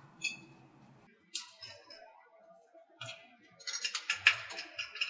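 Small metallic clicks and ticks of a hex wrench turning the 5 mm bolts into a scroll pump's outboard housing while they are run in loosely: a few separate clicks, then a quick run of ticks and rattles about four seconds in.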